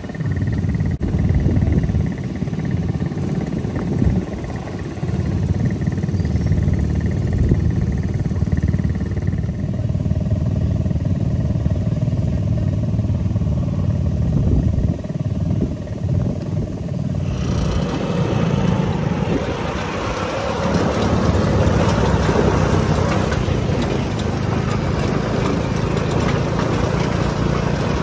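Engine of an open off-road buggy running under way. A broad rushing noise joins it about two-thirds of the way through.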